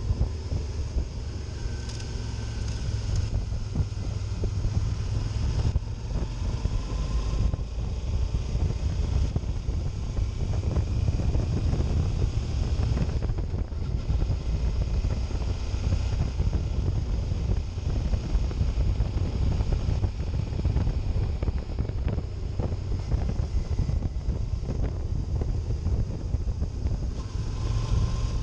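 Heavy wind noise on the microphone over a Suzuki DL650 V-Strom's V-twin engine running steadily while the bike is ridden.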